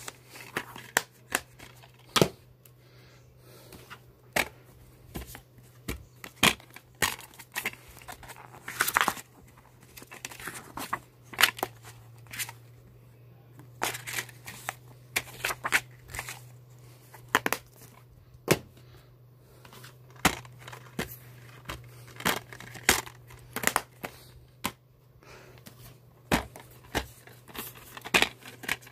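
Plastic DVD cases being handled: irregular sharp clicks and snaps as the cases are opened, closed and picked up, mixed with paper inserts rustling. A steady low hum runs underneath.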